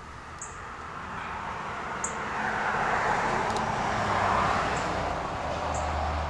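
A motor vehicle passing by: a broad rushing road noise that swells over the first couple of seconds, holds through the middle and fades near the end, over a low hum. A few short, sharp high clicks are heard along with it.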